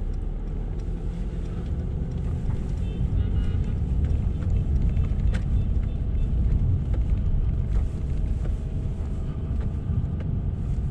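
Steady low rumble of a Mercedes-Benz car's engine and tyres heard from inside the cabin while it drives along a road.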